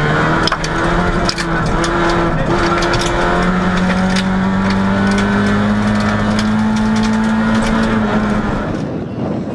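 VW Golf GTI 16V rally car's four-cylinder engine heard from inside the cabin, driven hard on gravel: a gear change about half a second in, then the revs climb steadily in one gear, with loose stones pinging against the car's underside. Near the end the in-car sound drops away.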